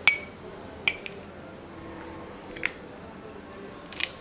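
Metal spoon clinking against a glass dessert bowl four times as peach cobbler is spooned into it. The first clink is the loudest and rings briefly.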